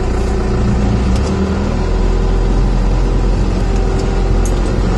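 Cummins 4BT four-cylinder turbo-diesel in a Ford F-150 pulling the truck along a dirt road, heard from inside the cab; the engine note shifts a little about two seconds in.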